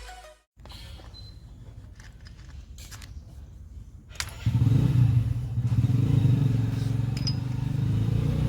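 Royal Enfield Himalayan's single-cylinder engine idling with an even low pulse. It is faint at first, then much louder from about four seconds in, just after a click.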